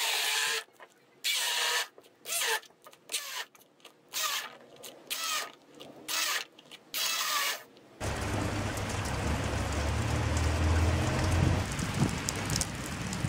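Hand-held immersion blender run in about eight short pulses, puréeing banana chunks in a glass jug. About eight seconds in, it gives way to a steady rush of rain with a deep rumble underneath.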